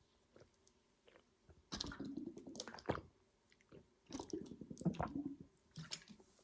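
A person drinking, with wet gulping and swallowing sounds in two short runs.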